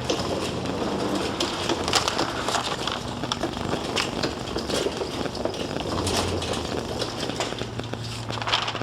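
A loaded metal shopping cart rolling across a store floor, its wheels and frame rattling and clattering with many small clicks.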